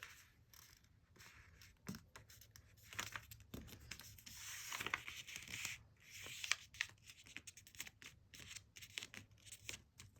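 Standard printer paper being folded and creased by hand: faint, irregular rustling and rubbing of the layered sheet.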